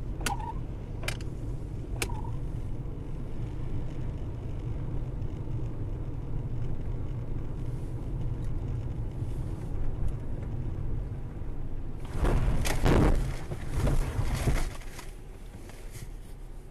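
Car driving, heard from inside the cabin through a dashcam microphone: a steady low rumble of engine and road noise. A few sharp clicks come in the first two seconds, and a louder, rough rushing noise rises about twelve seconds in and fades about three seconds later.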